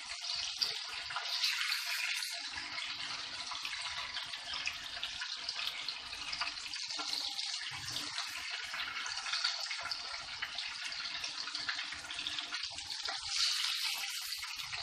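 Chicken pieces frying in hot oil in a wok-shaped pan, a steady sizzle with crackling, as the fried pieces are lifted out with a metal spoon.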